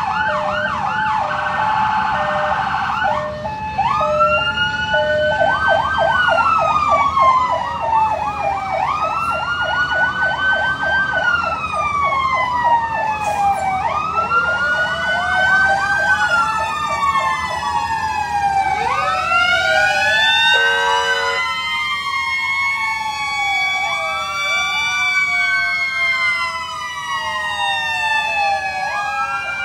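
Fire engine sirens sounding as the trucks pass: a fast yelping warble alternates with long wails that rise and fall. From about two-thirds of the way through, several sirens wail over one another, with a short horn blast among them. Low truck engine rumble runs underneath.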